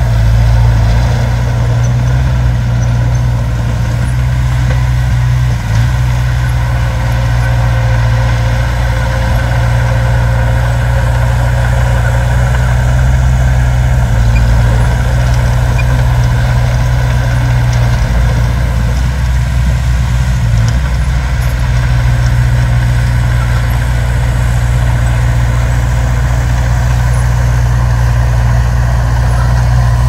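Heavy diesel engine idling steadily, a loud low rumble with a slight wavering about two-thirds of the way through.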